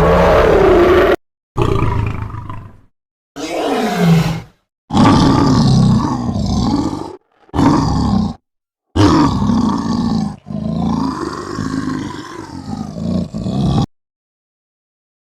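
Lion roaring and growling in a string of about seven separate calls, each cut off abruptly by a short silence. The roars stop about a second and a half before the end.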